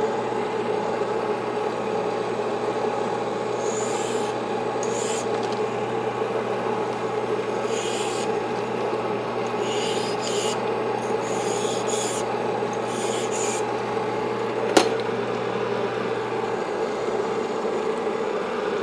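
Sunnen honing machine running with a steady motor hum, while its honing stones are hand-dressed to break their edges, giving short rasping scrapes. A single sharp click comes about 15 seconds in.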